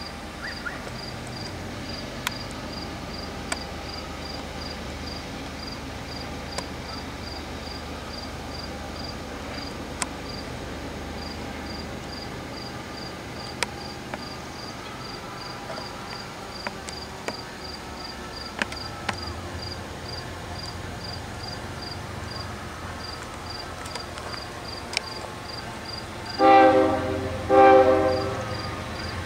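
An approaching diesel freight locomotive sounds its horn in two short blasts near the end, over a low rumble that grows from about two-thirds through. An insect chirps steadily, about three times a second, throughout.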